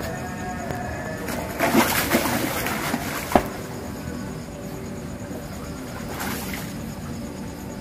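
Water splashing in a short burst about two seconds in and again more faintly about six seconds in, over background music with steady held notes. A single sharp click about three and a half seconds in.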